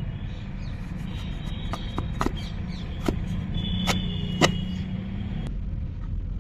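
A steady low background rumble, with a few sharp ticks as a flat chisel pares across pine end grain to shape a curved notch.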